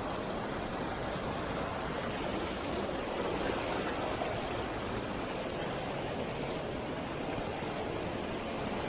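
Steady rush of water from a stream and waterfall.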